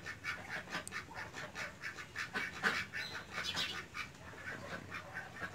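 Ducks calling: a quick, steady run of short calls repeating several times a second.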